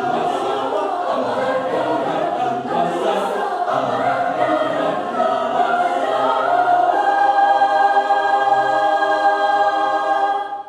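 Choir singing; about seven seconds in the voices settle on a long held chord, which cuts off just before the end.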